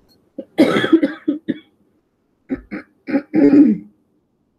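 A person coughing in two short fits about a second apart, with some throat clearing.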